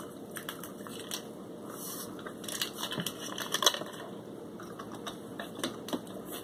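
Crinkling and crackling of a paper drink-mix packet being handled, a scattered run of small sharp clicks and rustles that is busiest in the middle.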